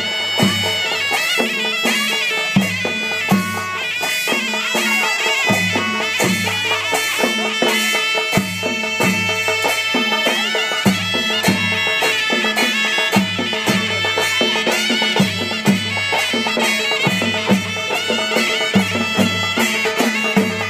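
Nepali folk music played live on two-headed barrel drums, with a high, reedy melody held over a steady drum beat.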